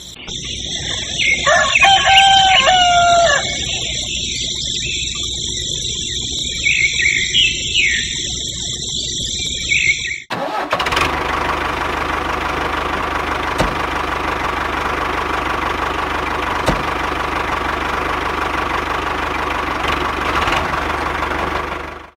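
A rooster crows once over a steady chorus of insects, with a few short bird calls after it. About ten seconds in the sound cuts to the steady running of a miniature DIY toy tractor's motor, an even mechanical hum with a steady tone, which continues to the end.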